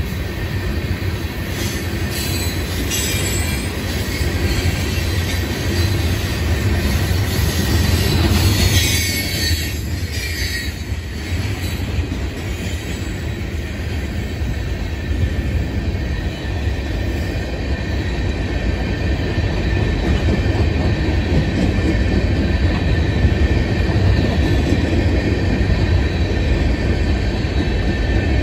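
Loaded freight cars rolling past on the rails, a steady low rumble of wheels on track. About eight to eleven seconds in there is a stretch of harsher, high-pitched wheel screech.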